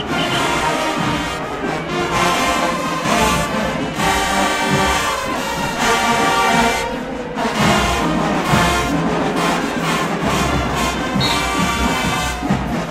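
Marching band brass section playing a tune, trombones and trumpets leading, with heavier low end coming in about halfway through.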